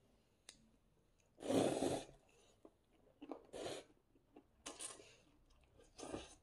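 Crunchy food being bitten and chewed close to the microphone: four separate crunches, the loudest about a second and a half in.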